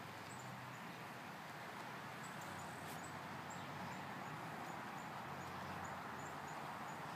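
Outdoor yard ambience: a steady background hiss with a faint low hum, and small high-pitched chirps repeating about two or three times a second.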